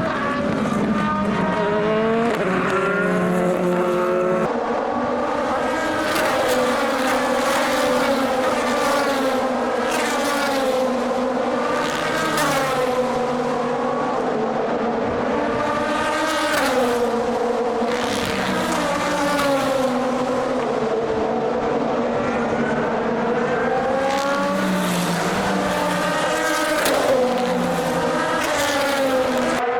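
Endurance race cars passing at speed one after another, their engine notes overlapping and rising and falling in pitch as each goes by.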